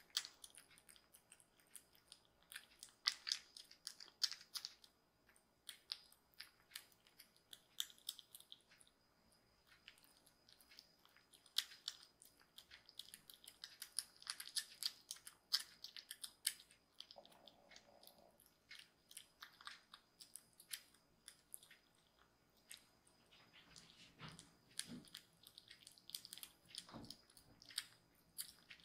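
Two young kittens eating soft weaning food from bowls: faint, quick, irregular smacking and lapping clicks of their tongues and jaws.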